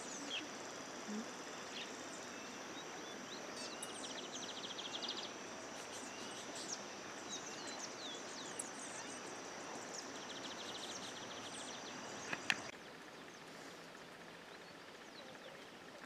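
Faint rural birdsong ambience: scattered short, high bird chirps and two buzzy trills over a steady high-pitched whine and hiss. After about thirteen seconds the background drops to a fainter hiss.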